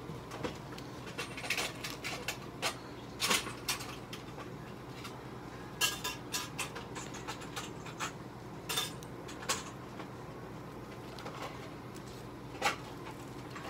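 Irregular light clicks, ticks and rustles of hands handling paper tissue and tape on a cat's bandaged foreleg with an IV catheter in place, over a steady low hum.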